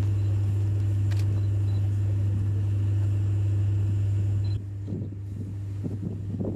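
A steady low engine hum, which drops to a quieter level about two-thirds of the way through.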